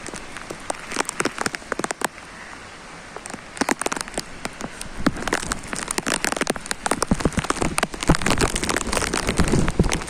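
Heavy rain pouring down, an even hiss studded with many sharp individual drop strikes that come thicker and louder in the second half.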